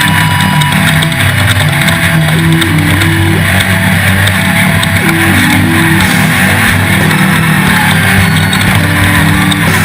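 Off-road race vehicle engines running loud under a rock music soundtrack, with short stepping melody notes over a dense, steady roar.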